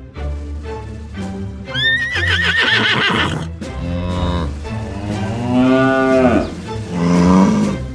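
A horse whinny with a quavering pitch about two seconds in, then a long cow moo and a shorter moo near the end, over background music.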